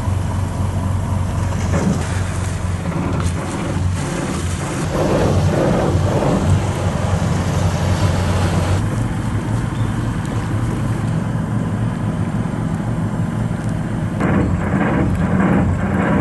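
Small passenger ferry's engine running with a steady low drone, with the rush of water and wash along the hull, heard from the boat's rear seats.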